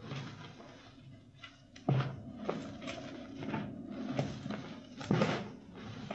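Reformed chalk being crushed by hand: a series of irregular dry crunches and crumbles, the sharpest about two seconds in and again around five seconds.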